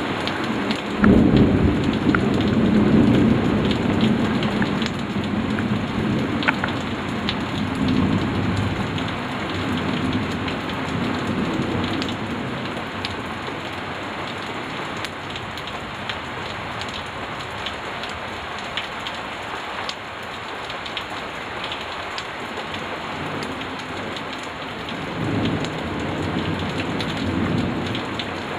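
Thunderstorm: steady rain falling, with scattered drop ticks and rolling thunder. A loud rumble starts about a second in and dies away over the next ten seconds or so, and a shorter second rumble comes near the end.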